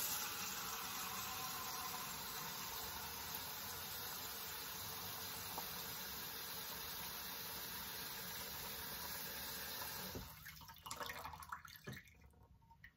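Kitchen faucet running into a stainless steel dog bowl, filling it with water. The tap is shut off about ten seconds in, leaving a thin trickle and a few drips.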